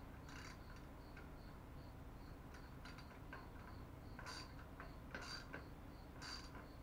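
Faint high-pitched chirping repeating evenly about three times a second, like a cricket, with a few light clicks.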